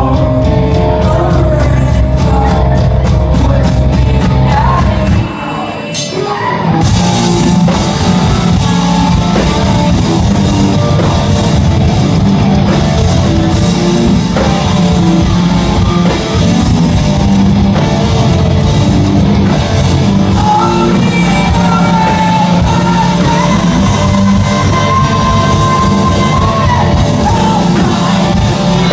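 Post-hardcore band playing live and loud in a club hall, with sung and shouted vocals over distorted guitars, bass and drums. About five seconds in the bass and drums drop out briefly, and the full band crashes back in about two seconds later.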